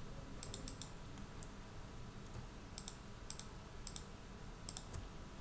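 Quiet clicks of a computer mouse and keyboard, a dozen or so, scattered in small groups and pairs.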